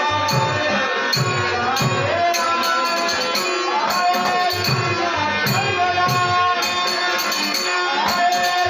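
A man sings a devotional Dashavatar song in a high, full voice over a harmonium's held chords. Small hand cymbals clink in a steady beat, and a drum plays low strokes.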